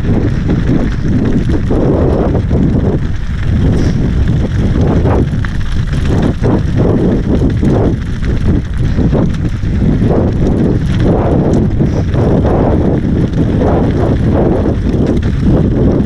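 Santa Cruz Bronson mountain bike descending rocky singletrack at speed: a steady rush of wind on the helmet-mounted microphone over the tyres crunching on loose rock and the bike's frame and chain rattling, with uneven surges as it hits bumps.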